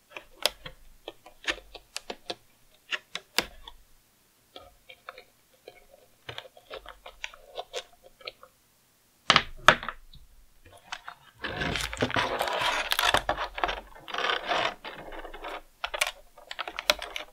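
Small clicks and taps of an X-Acto knife and fingers on a clear plastic blister tray as the rubber bands holding action figures in it are cut. There are two loud sharp clicks about nine seconds in. From about eleven seconds on the plastic tray crackles and rattles as it is handled.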